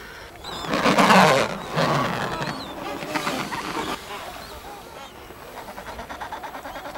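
A seal's harsh, honking call about a second in, followed by a shorter, weaker one, with thin high bird chirps around it.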